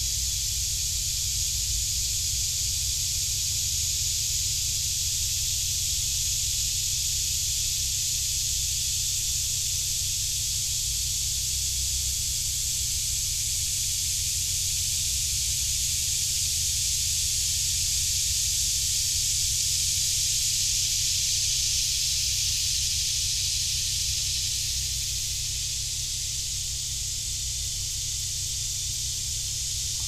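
Loud cicadas in the trees: a steady, unbroken high-pitched buzzing chorus that swells slightly past the middle and eases a little near the end.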